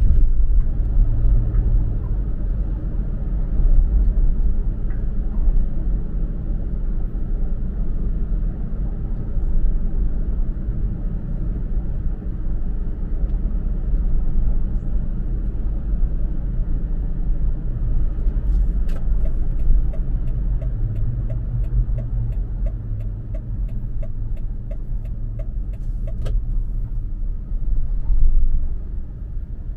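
Steady low rumble of a Toyota FJ Cruiser's 4.0-litre V6 and tyres cruising on a damp road. Past the middle, a regular ticking of about three a second runs for several seconds.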